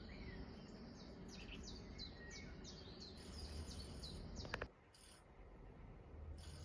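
Small birds chirping in a quick run of short falling chirps, played from a cat-entertainment video of mice and birds. A sharp click about four and a half seconds in, after which it goes quieter.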